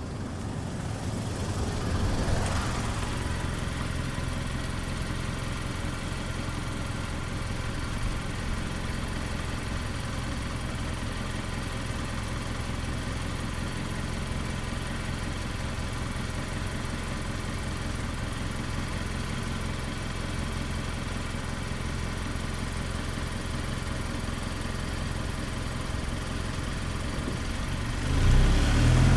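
A Mazda CX-5 small SUV's engine idling steadily, heard from beside the car, after a brief swell about two seconds in. Near the end it gets much louder as the car starts to drive away.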